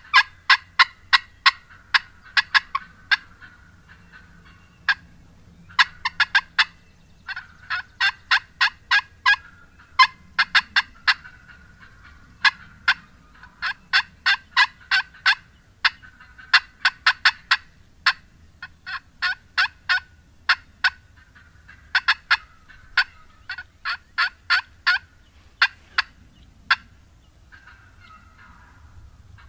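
Wild turkey hen cutting: loud, rapid runs of short, sharp clucks, about five a second, broken by brief pauses, the excited calling of a hen worked up enough to draw gobblers in. The calling softens to a few quieter notes near the end.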